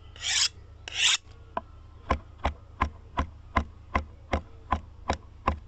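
Three rasping scrapes in the first second or so, then a steady series of sharp knocks, about three a second, each with a short ringing tone, over a low hum.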